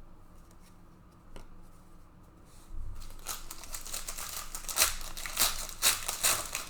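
Plastic foil wrapper of a trading-card hobby pack being torn open and crinkled, starting a little under three seconds in, with many sharp crackles.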